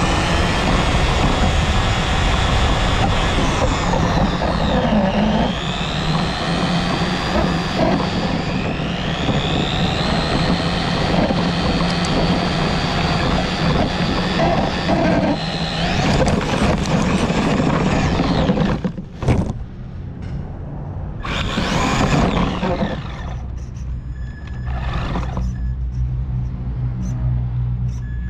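Remote-control car's motor whining, rising and falling in pitch with the throttle, over rattling from the wheels on the road. About two-thirds of the way through it drops off, then comes back in short surges.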